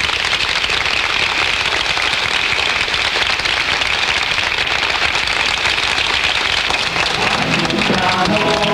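Audience applauding: a dense, steady clatter of many hands clapping. Near the end, singing with music comes in over it.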